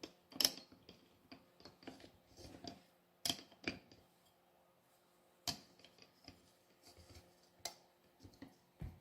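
Small metal clicks and clinks of an adjustable pin wrench being fitted against an angle grinder's flange nut. A handful of sharp ones are scattered through, the loudest about half a second in and two close together a little past three seconds. The wrench is not yet adjusted right to seat in the holes.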